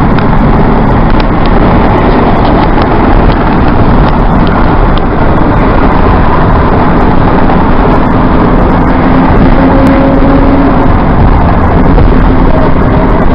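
Loud, steady road and wind noise of a moving car at highway speed.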